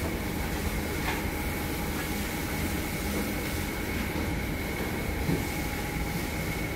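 Steady machine hum and rushing noise with a faint, constant high whine: the running background machinery of a commercial kitchen.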